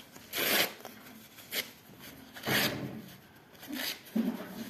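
Scissors snipping through paper napkins, cutting them into small pieces: about four separate short cuts with paper rustling.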